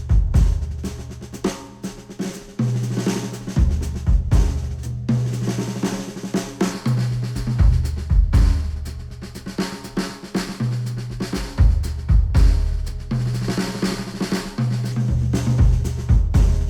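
Instrumental music led by a drum kit (snare, bass drum and hi-hat) over a bass line that steps between low notes every second or two. It is played back through Sennheiser headphones and picked up by microphones.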